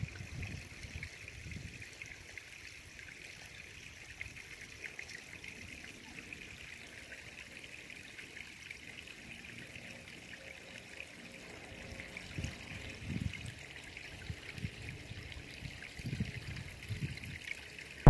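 Faint, steady trickling of water. A few soft low rumbles rise and fade about two-thirds of the way through and again near the end.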